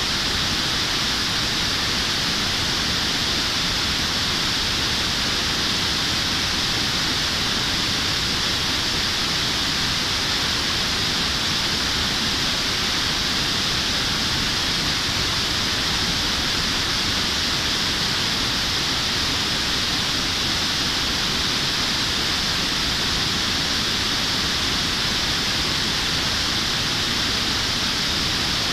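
Steady rush of a mountain stream pouring over a low concrete weir: an even, unbroken hiss of falling water.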